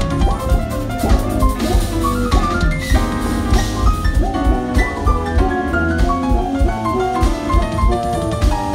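Live jazz-funk band playing: a drum kit keeps a busy beat under electric bass and keyboards, with fast runs of short notes stepping up and down.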